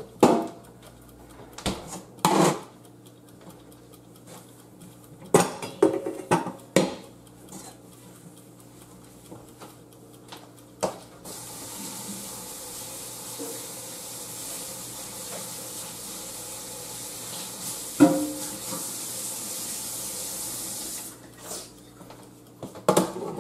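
A few knocks and clatters of kitchen items, then a kitchen tap runs into a stainless-steel sink for about ten seconds, with one sharp clink of a dish or utensil partway through.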